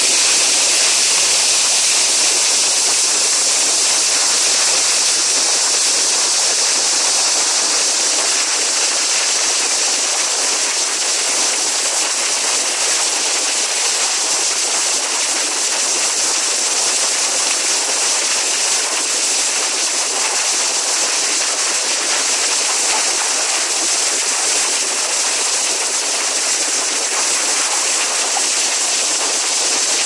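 Mountain waterfall crashing onto rocks: a steady, loud rush of falling water, mostly high and hissy with little low rumble.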